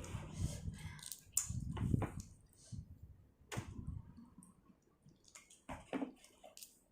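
A person chewing and eating spicy seafood papaya salad: wet, squishy chewing with scattered small clicks.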